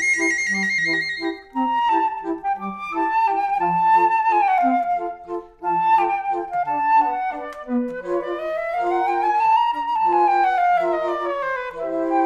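Background music: a melody in quick, short notes over a repeating low accompaniment, with a run of notes climbing for about two seconds near the end and then falling back down.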